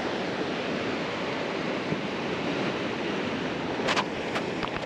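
Steady wash of surf breaking and rolling onto the beach, with wind on the microphone. A few short, sharp clicks come close together about four seconds in.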